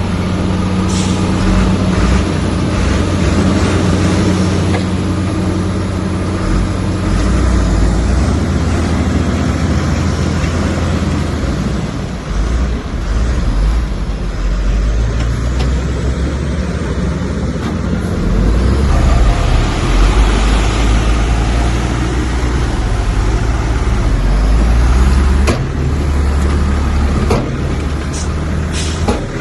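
Komatsu bulldozer's diesel engine running hard as it works, its pitch and load rising and falling, with a few sharp knocks near the end.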